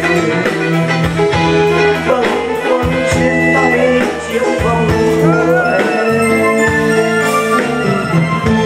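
Music with a steady beat and sustained instrumental notes.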